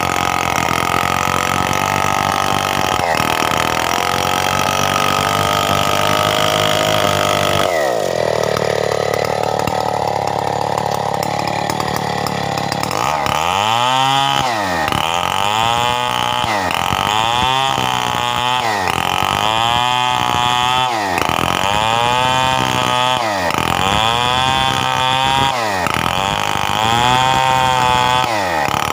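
Stihl 070 chainsaw, a big two-stroke, running hard while cutting coconut wood. About 13 s in its engine note starts dipping and recovering over and over, roughly once a second, as the saw works through the cut.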